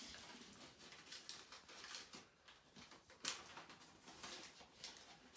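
Near silence: room tone with a few faint clicks, the clearest about three seconds in.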